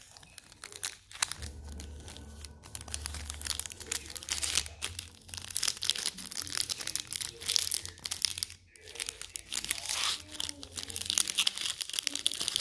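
Trading-card pack wrapper crinkling and crackling as fingers pick and tear at its sealed end to open it, with a brief pause about two-thirds of the way through.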